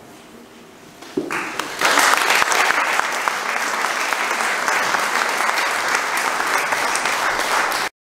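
Audience applauding: the clapping starts about a second in, quickly swells to a steady level, then cuts off abruptly just before the end.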